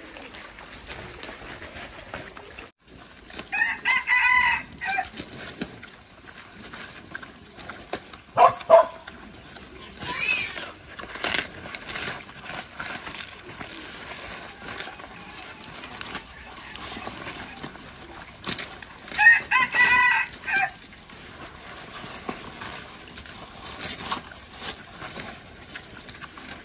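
A rooster crows twice, once about four seconds in and again near twenty seconds, with a shorter call in between. Under it runs a steady crunching and rustling as a pig chews fresh leaves.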